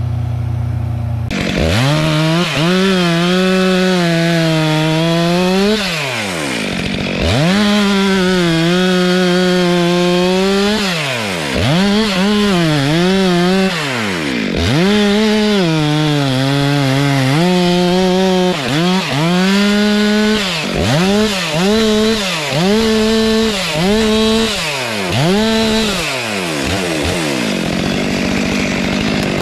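Stihl MS 462 two-stroke chainsaw fitted with a new Stihl Hexa chain, cutting through logs. The engine is held at full throttle in each cut, then falls away and revs back up between cuts. The cuts get shorter and quicker in the second half.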